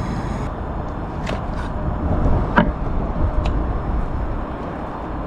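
Steady low outdoor rumble, with a few light clicks and knocks about a second, two and a half seconds and three and a half seconds in.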